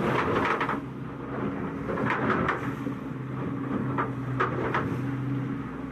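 Boat engine running steadily at speed, with short rushes of water splashing against the hull every second or so as the boat runs through waves.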